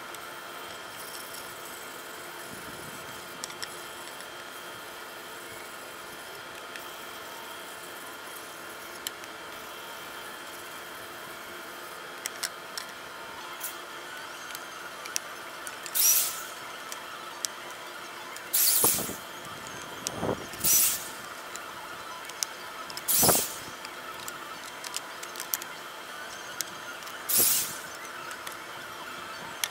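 Corded electric drill boring pocket holes in wooden boards through a Kreg pocket-hole jig: about five short, high-pitched squealing bursts of drilling in the second half, with light clicks and knocks of the board and jig in between.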